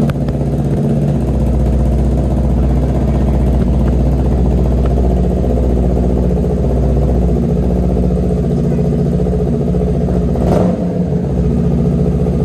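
Motorcycle engine running steadily at idle close by, with a brief louder flare about ten and a half seconds in.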